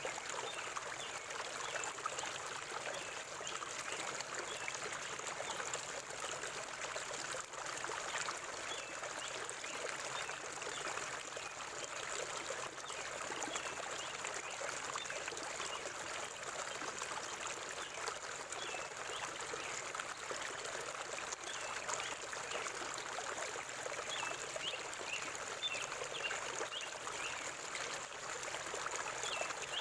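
River water flowing and trickling over rocks in a steady, unbroken rush.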